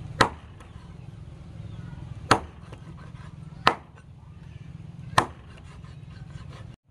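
Steel cleaver chopping through skinned snake into a thick wooden chopping block: four sharp chops, spaced one to two seconds apart.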